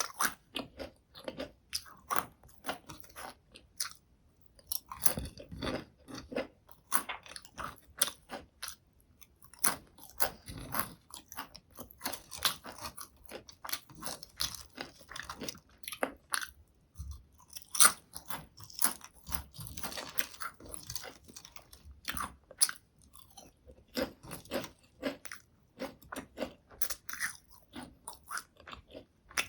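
Potato chips crunched and chewed close to the microphone: rapid sharp crackles of the chips breaking between the teeth, in bursts with short pauses between bites.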